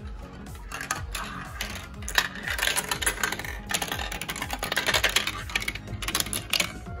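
Marbles clattering and rolling down a plastic marble run: a dense, irregular stream of quick clicks and rattles against the track pieces.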